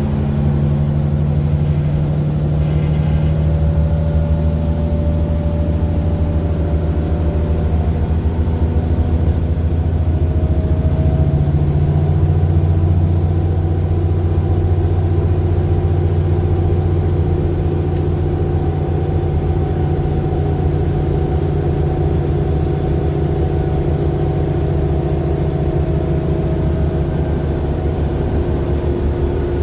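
Mercedes-Benz Citaro LE bus's Daimler OM 457 hLA six-cylinder diesel running steadily under way, with a faint high whine that rises and falls.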